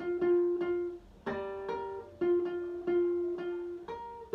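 Guitar playing a single-note circus-clown riff up the neck around the 10th and 11th frets. Each note is picked several times in a row before the line steps to the next pitch.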